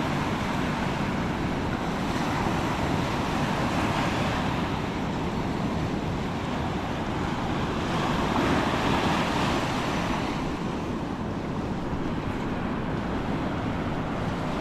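Ocean waves washing in with steady surf noise and wind buffeting the microphone, swelling a little about two-thirds of the way through.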